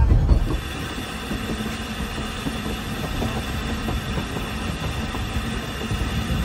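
Fairlie's Patent double-ended narrow-gauge steam locomotive standing with steam up, giving a steady hiss and hum. A louder low rumble from a moving carriage cuts off about half a second in.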